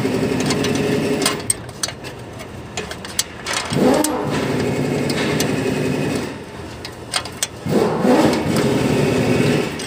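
An engine revved in repeated bursts about every four seconds; each burst rises in pitch, holds steady for a second or two, then drops away.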